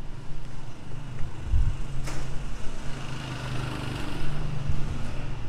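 Street traffic noise, a motor vehicle engine running as a steady low hum, with a sharp click about two seconds in.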